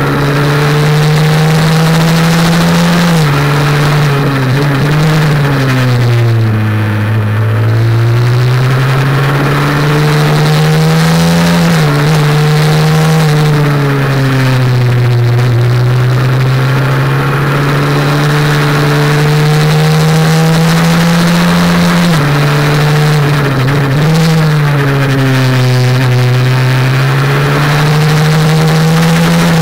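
Honda NSF100's single-cylinder four-stroke engine heard onboard at racing speed, over steady wind noise. The engine note falls away three times as the bike slows for corners, then climbs again as it accelerates out.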